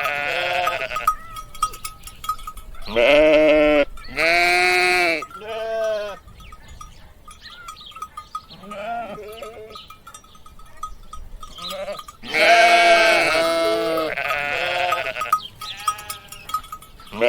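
Sheep bleating: a few wavering bleats, then a quieter pause, then several more.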